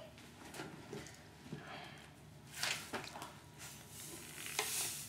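Faint handling noises of a cardboard salt canister being picked up and handled, with a few brief scuffs around the middle and a longer rustle near the end.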